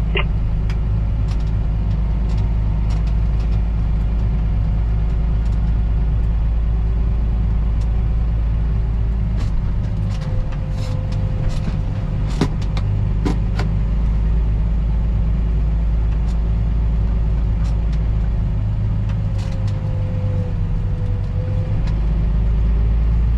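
Engine running steadily at an even speed. There are a few sharp clicks or knocks about halfway through.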